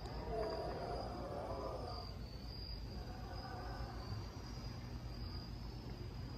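Crickets chirping: a faint, steady high trill.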